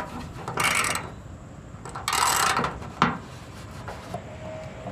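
Ratchet on a swivel and long socket extensions working a tight spark plug loose: two short noisy strokes about a second and a half apart, then a single click about three seconds in.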